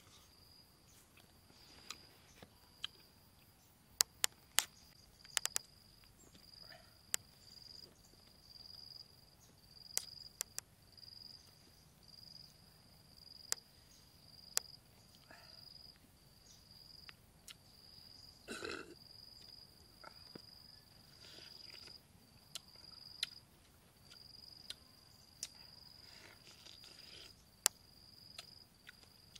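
An insect calling steadily, a single high note repeating about once a second, behind close mouth sounds of eating a sour green lime: sharp wet clicks and smacks, and one longer, louder mouth noise about two-thirds of the way through.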